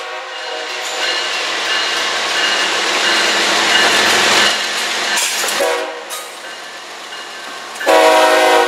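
CSX diesel freight locomotives passing close by, sounding a multi-tone air horn. A horn blast dies away just after the start, and engine and wheel noise swell as the lead unit goes by about four seconds in. A short horn note follows a little past halfway, then a louder blast near the end.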